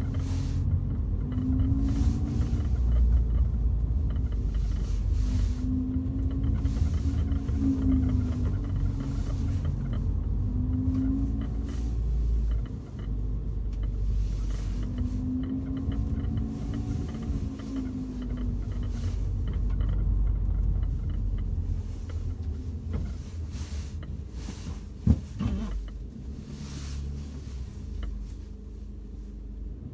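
Volkswagen Golf GTI Mk7 running on the road, with a steady low rumble of engine and road noise and an engine tone that rises and falls several times. A single sharp knock comes about 25 seconds in.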